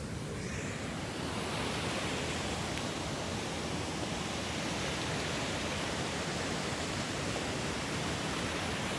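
The high, fast river rushing over the Cascades, a flood-control cascade: a steady wash of white-water noise that swells slightly about a second and a half in.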